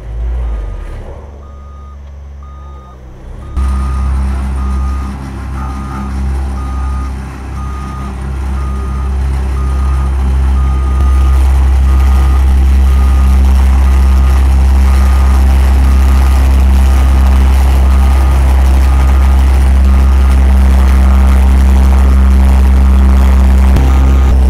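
CAT tandem vibratory road roller compacting loose gravel fill, its diesel engine running with a steady low rumble that swells as it comes close and then holds level. Its reversing alarm beeps in a steady repeating pattern through the first half.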